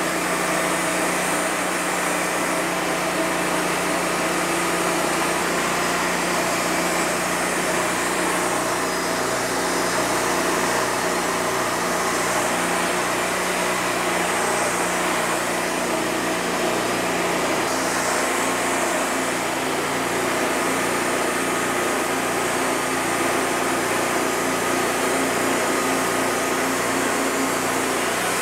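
Wood-Mizer LT40 Wide hydraulic bandsaw mill running steadily, its engine holding an even pitch as the blade is fed slowly through a monkey puzzle log.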